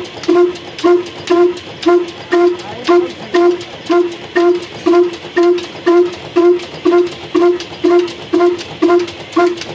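Ruston stationary diesel engine running slowly and evenly, its exhaust puffing about two beats a second, each beat a short pitched note.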